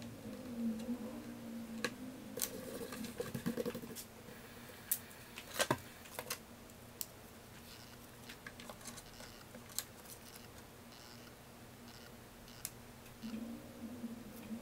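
Scattered light clicks, taps and rustles of hands handling a book clamped in a bench vise, with one sharper tap a little before the middle.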